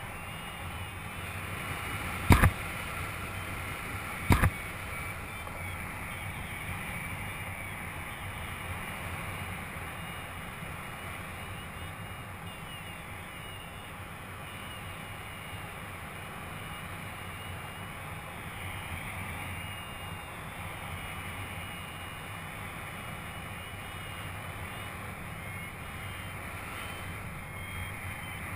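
Steady wind rushing over the microphone of a paraglider in flight. Two sharp knocks about two seconds apart near the start.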